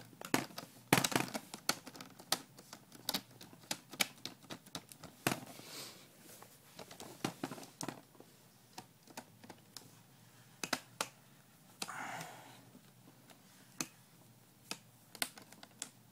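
Plastic screen bezel of an Asus U52F laptop being pressed onto the lid, its clips snapping into place in a long, irregular series of sharp clicks, with a couple of short rustles of plastic being handled.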